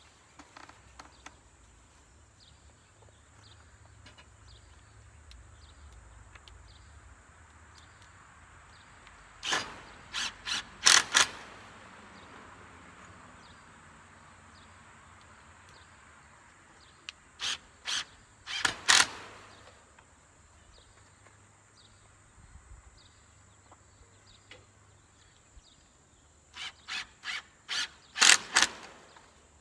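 Hammer nailing: three bursts of several quick, sharp strikes about eight seconds apart. Faint, regular bird chirps in between.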